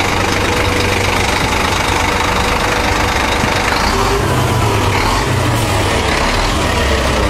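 Ford Ranger pickup driving on a rutted dirt road, heard from inside the cabin: steady engine and tyre noise with a deeper low rumble building about halfway through.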